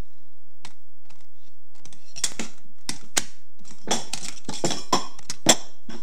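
Weighted speed-stacking training cups (Super Stacks) clacking against each other and the table as they are stacked up fast: a few scattered clicks at first, then a rapid run of clattering from about two seconds in.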